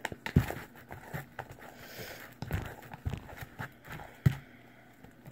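Sticky homemade glue slime being worked by hand in a bowl: irregular squelches and soft knocks, a few of them sharp.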